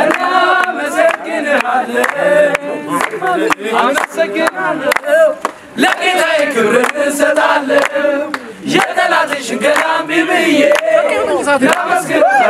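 A group of men singing together in chorus, with hand claps keeping time.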